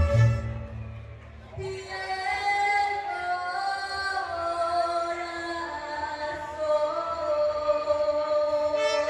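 A woman singing a slow, drawn-out phrase of a mariachi song in long held notes. The band's bass and rhythm drop away about a second and a half in, leaving the voice almost alone.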